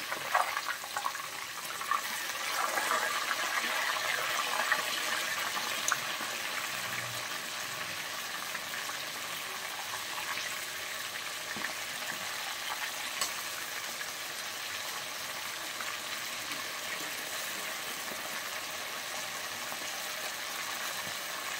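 Masala-coated quail sizzling steadily in deep hot oil in an iron kadai, a little stronger in the first few seconds after the pieces are turned. A few light clicks of a wire skimmer against the pan.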